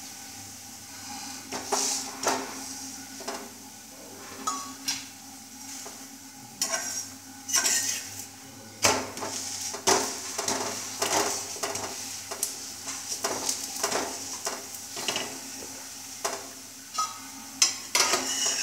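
Steel spoon stirring and scraping food in a hot iron pan: irregular clicks and knocks of metal on metal over a steady sizzle of frying. The strokes come thicker from about a third of the way in.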